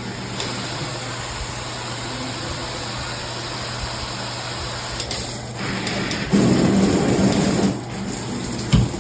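Water spraying steadily from a high-pressure shower head, growing louder for a stretch between about six and eight seconds in.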